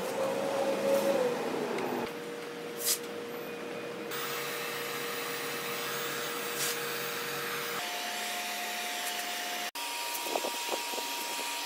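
HomeRight heat gun running, its fan blowing a steady rush of hot air with a whine, heating an acrylic sheet soft enough to bend. The whine jumps to a higher pitch twice at abrupt breaks.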